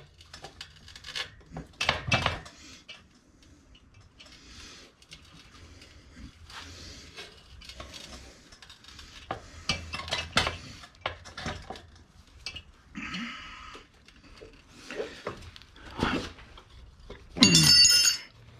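Metal tools clinking, knocking and scraping against a spoked motorcycle wheel rim as the tire is worked off it. About a second before the end there is a loud ringing metal clang.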